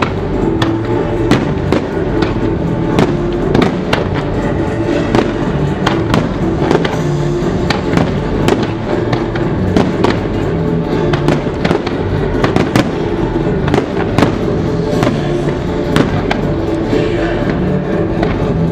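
Aerial fireworks bursting in a rapid, irregular string of sharp bangs, several a second, with music playing along with the show.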